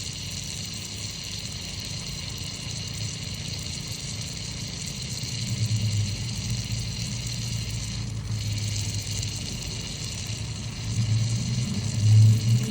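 WD-40 aerosol can spraying steadily, a continuous hiss of penetrating lubricant being sprayed into a sticky lock. Under it runs a low steady hum that swells briefly about six seconds in and again near the end.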